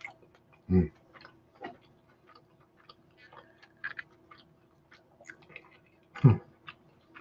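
A man chewing a mouthful of pizza, with many small wet mouth clicks, and two short low vocal sounds from him about a second in and near the end. A faint steady hum runs underneath.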